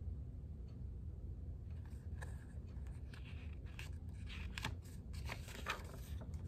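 Paper pages of a picture book being handled and turned: a run of dry rustles and small clicks starting about two seconds in, over a low steady room hum.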